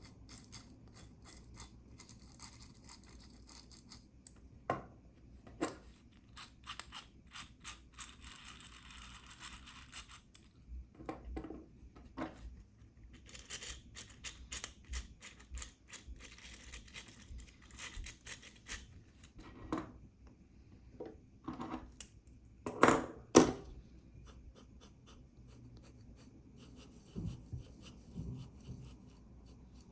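Trackballs spun by hand on ball transfer units and on roller bearings: a dry, grainy rolling rasp broken by irregular clicks, with a couple of louder knocks a little past the middle.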